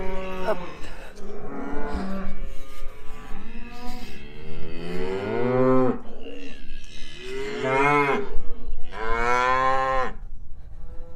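Several cows mooing one after another, long drawn-out calls that rise and fall in pitch, some overlapping, with the two loudest near the end.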